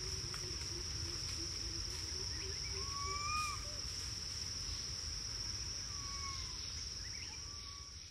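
Steady high-pitched trill of crickets over a low rumble. Three short whistled calls slide in pitch about three seconds in, about six seconds in and near the end, and everything fades out at the close.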